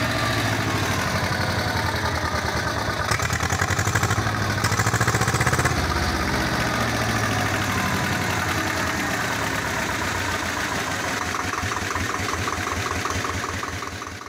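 Swaraj 724 XM tractor's two-cylinder diesel engine idling in neutral with a steady, even firing beat, freshly started after an oil and filter change and running well. It is a little louder for a few seconds around the middle and fades out at the end.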